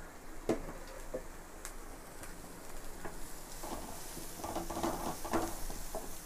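Chopped onions and garlic sizzling in oil in a metal pot as a wooden spatula stirs and scrapes them. There is a sharp knock of the spatula against the pot about half a second in, and a cluster of scraping strokes near the end.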